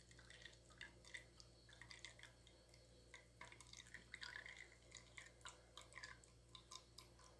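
Near silence with faint scattered clicks and small taps of kitchen handling, as a piece of lemon is cut and added to a glass of blended ginger juice.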